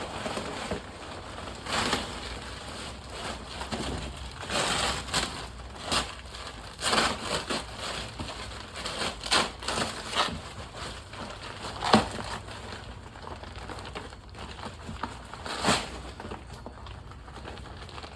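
Packing material being pulled off and crumpled around a shipped car bumper: irregular bursts of rustling and crackling, with one sharp knock about twelve seconds in.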